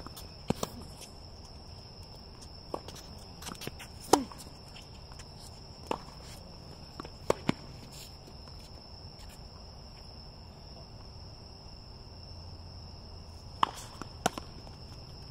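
Tennis rally on a hard court: sharp pops of racket strings striking the ball and the ball bouncing, spaced a second or more apart, the loudest about four seconds in, then a quiet stretch before two more near the end. A steady high insect trill runs underneath.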